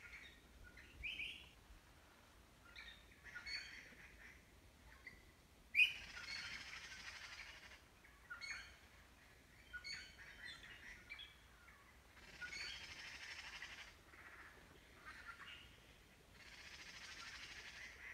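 Birds chirping: scattered short high calls, and three buzzy trilling stretches of a second or two each, with the sharpest chirp about six seconds in.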